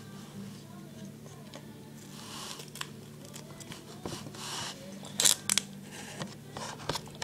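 Duct tape being pulled off the roll in two drawn-out rips, then cut with scissors: sharp snips about five seconds in, followed by a few lighter clicks of handling.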